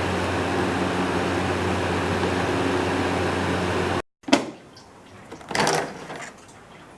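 Portable evaporative air cooler running steadily, its fan giving a constant rush of air over a low motor hum. About four seconds in the sound cuts off, followed by a sharp click and a short rushing noise.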